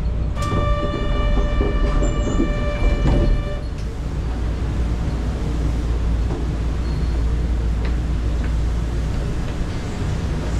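Kyoto subway train's low rumble and hum at a station stop. A steady high tone with overtones sounds for about three seconds near the start, then stops.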